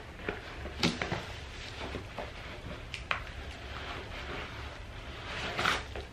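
Soft handling noises as a leather knee-high boot and a cotton sock are handled: scattered rustles and a few light knocks over a low steady hum.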